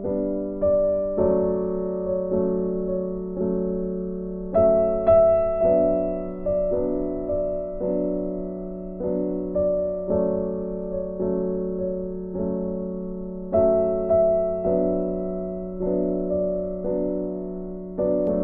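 Soft background piano music: notes struck about once a second, each fading out, with a stronger chord about four seconds in and again near thirteen seconds in.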